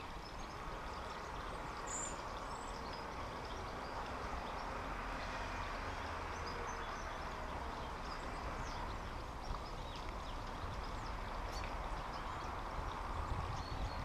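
Outdoor garden ambience: a steady background hiss with a low rumble, and faint high bird chirps now and then, a clearer one about two seconds in.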